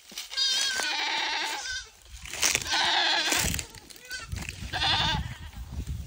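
A goat kid bleating three times in long, quavering calls, a kid calling for its mother.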